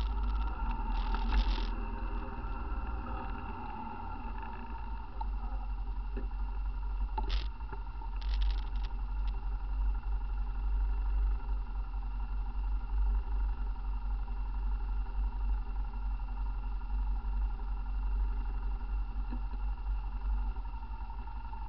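Off-road vehicle engine idling steadily, with a few short sharp knocks in the first ten seconds.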